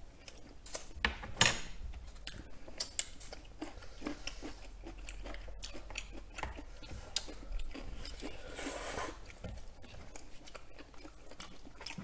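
Close-miked chewing and wet mouth sounds of eating soft noodles and chicken in a cream sauce, with many light clicks of wooden chopsticks against the plastic containers.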